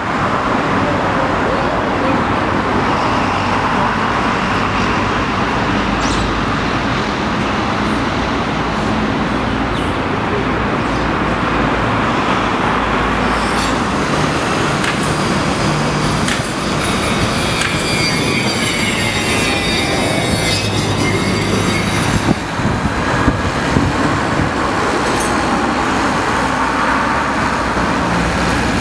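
Steady city street noise: road traffic running continuously.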